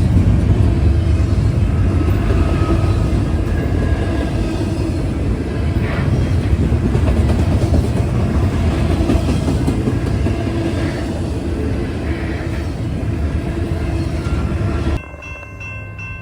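A train rolling past on the rails: a steady, loud rumble of wheels and cars, with faint high tones above it. It cuts off suddenly about a second before the end.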